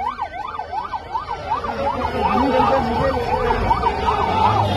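Emergency vehicle siren in fast yelp mode, its pitch sweeping up and down about two and a half times a second.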